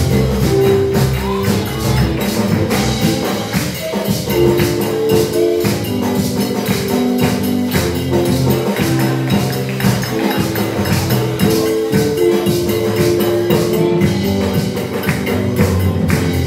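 A live praise band playing with electric guitar and keyboard over a steady percussion beat.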